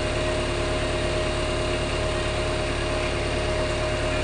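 JCB 3DX backhoe loader's diesel engine running steadily: a low rumble with a steady hum above it.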